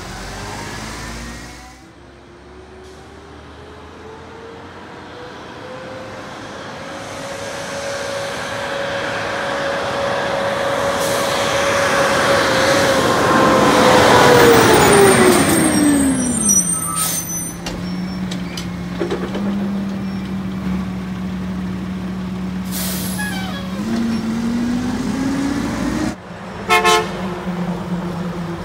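Mack LE garbage truck's diesel engine revving up and holding at high revs, growing louder, then dropping back to a steady idle about two-thirds of the way through. It rises slightly again, and a short loud burst comes near the end.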